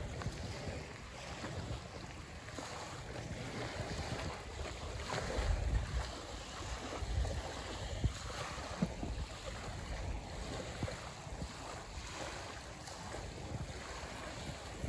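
Wind buffeting the microphone in gusts, strongest about five to seven seconds in, over small waves lapping on a sandy lakeshore.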